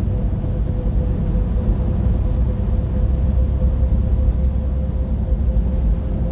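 Truck cab at highway speed: steady low engine and road rumble with a faint steady whine above it.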